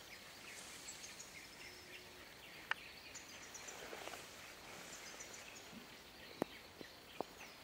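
Faint forest ambience with scattered high bird chirps and a few short, sharp clicks.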